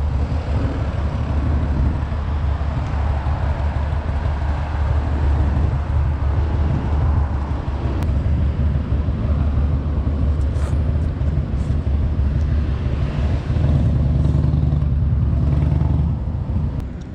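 Road traffic passing close by: a steady low rumble of cars and trucks driving past. It swells for a few seconds near the end, then drops away.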